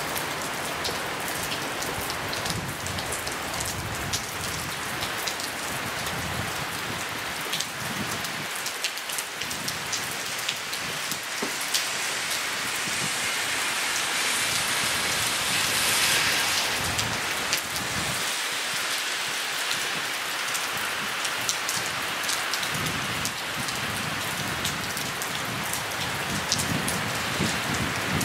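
Steady rainfall, an even hiss with individual close drops ticking. It swells louder for a few seconds around the middle.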